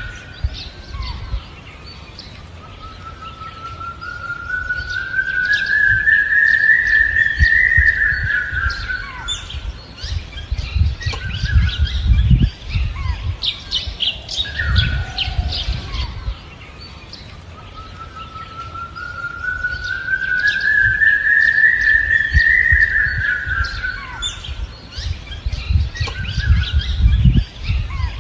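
Forest ambience of bird chirps and calls. Over it runs a long, slowly rising whine that swells over several seconds and then fades, under a low rumble. The whole pattern repeats about every fifteen seconds, like a looped nature-sound track.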